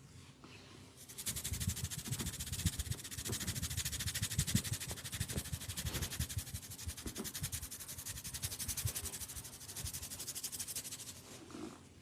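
Hands rubbing rapidly and rhythmically over skin or hair in a massage: a fast, even, scratchy rustle with soft low thumps. It starts about a second in and stops near the end.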